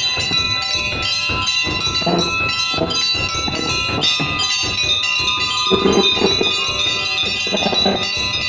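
Hindu temple bells ringing, struck again and again so that many ringing tones overlap without a break.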